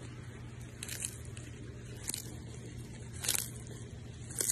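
A tortoise biting into kale leaves: four short, crisp crunches about a second apart, over a steady low hum.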